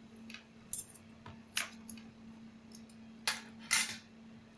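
Light clicks and metallic clinks of small parts and tools being handled, five short sounds spread over the few seconds, over a faint steady hum.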